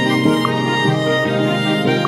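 Background music: a melodic instrumental passage of a Hindi romantic song, in the gap between sung lines.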